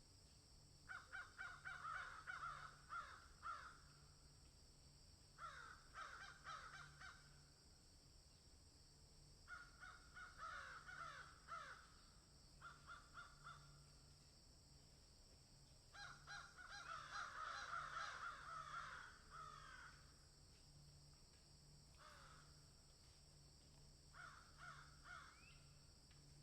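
Crows cawing in about seven bouts of quick repeated caws, with pauses between them; the longest and busiest bout comes a little past the middle. A steady high-pitched hiss runs underneath.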